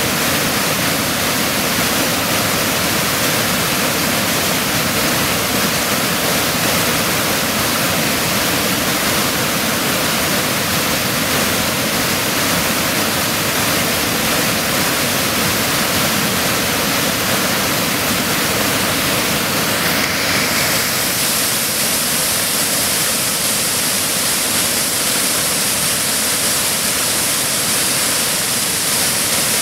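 Loud, steady rush of white water pouring over a waterfall.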